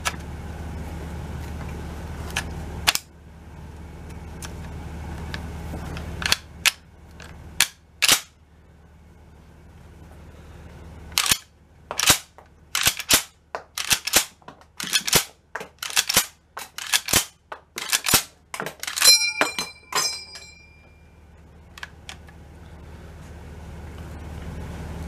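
M1 Garand action worked by hand with dummy cartridges. An en-bloc clip is seated and the bolt closes with a sharp metallic clack about three seconds in. Then a string of separate clacks follows as the operating rod is cycled to eject the dummy rounds, ending about 19 s in with a bright ringing ping as the empty clip is thrown out and the bolt locks open.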